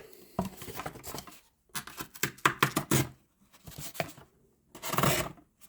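Irregular clicks, scrapes and rustles from hands handling a Victorinox Rescue Tool pocket knife and paper, with a louder rustle about five seconds in.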